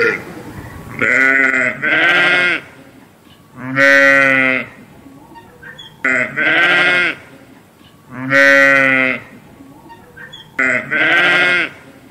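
Sheep bleating: a quick double bleat followed by a longer single bleat, the pattern repeating at regular intervals with short quiet gaps between calls.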